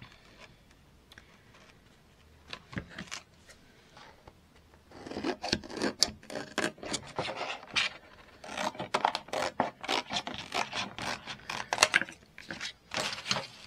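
Scissors cutting a clear sheet of fused laminating-pouch plastic: after a few quiet seconds with a faint click or two, two runs of quick, crisp snips with a short pause between.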